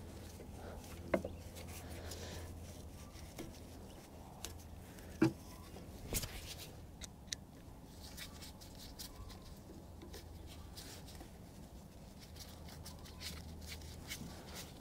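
Faint handling sounds of a screwdriver and hands working the fuel-line fitting on a generator carburetor. There are light scrapes and a few sharp clicks about one, five and six seconds in, over a low steady hum.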